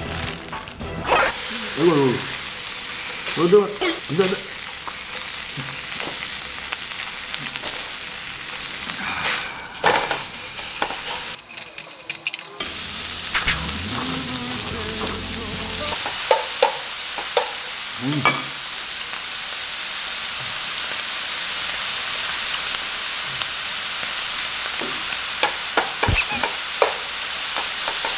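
Strips of beef rib-finger meat sizzling in a frying pan, with the metal tongs clicking and clattering against the pan now and then as the meat is turned. The sizzle grows slightly louder toward the end.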